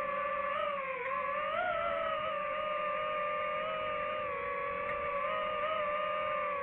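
DJI FPV drone's motors and propellers whining steadily, the pitch wavering up and down a little as the throttle changes.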